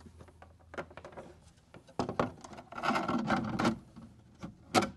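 Pebble beach shelf of an indoor water-wall feature being fitted back into its tray by hand: scattered light knocks, a harder knock about two seconds in, a scraping rub through the middle, and a sharp click near the end.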